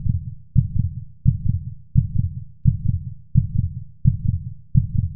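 Heartbeat sound effect: low double thumps, lub-dub, repeating evenly about one and a half times a second.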